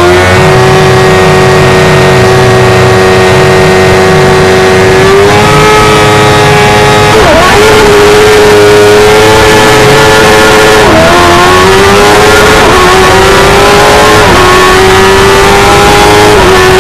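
Onboard sound of a Stohr F1000's 1000cc motorcycle-derived engine. It is held at steady revs for about five seconds, then climbs as the car pulls away, dropping in pitch about five times at the upshifts under hard acceleration.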